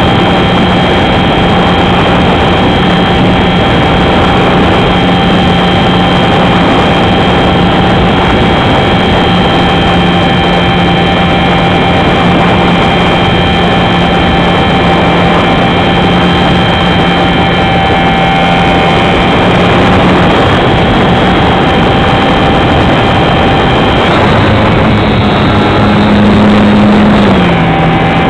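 R/C Super Cub model plane's motor and propeller running steadily in flight, close to an on-board camera, under a constant rush of air over the microphone. Late on the motor's pitch changes, rising briefly and then dropping just before the end.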